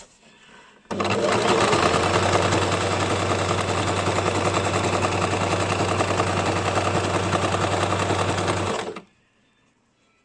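Basic domestic electric sewing machine running at a steady speed for about eight seconds, its motor humming under a rapid, even stitching rhythm; it starts suddenly about a second in and stops shortly before the end.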